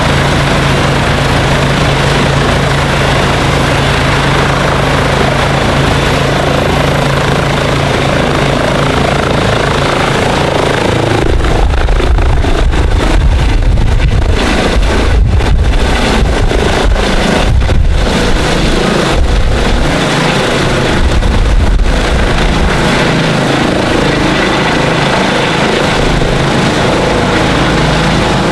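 Eurocopter EC135 rescue helicopter running at full rotor speed with a high turbine whine that rises in pitch, then lifting off about eleven seconds in. Its rotor downwash buffets the microphone with heavy low rumbling for about ten seconds before it climbs away overhead with a steady rotor sound.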